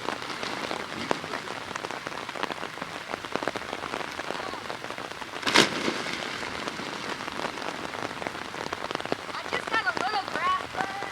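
Heavy rain falling steadily, a dense patter of many small drop ticks. A single sharp thump stands out about five and a half seconds in, and a brief high voice exclaims near the end.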